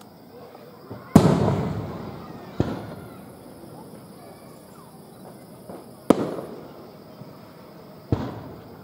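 Aerial firework shells bursting: four sharp bangs. The first and loudest comes about a second in and dies away in a long rumbling echo, and the other three follow at irregular gaps of one and a half to three and a half seconds.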